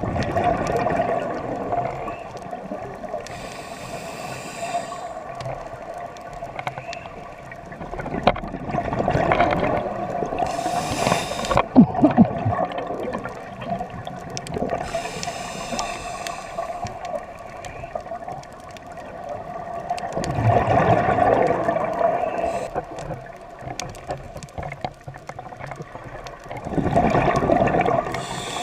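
A scuba diver breathing through a regulator underwater: a hiss on each inhalation, then a rush of bubbles on each exhalation, repeating every several seconds.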